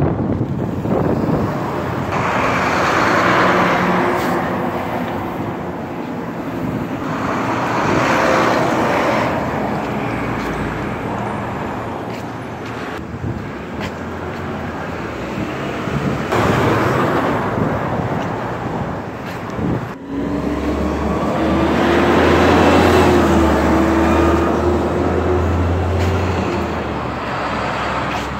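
Street traffic passing close by: several vehicles swell up and fade away one after another. A heavy engine's low drone comes in strongest about two-thirds of the way through.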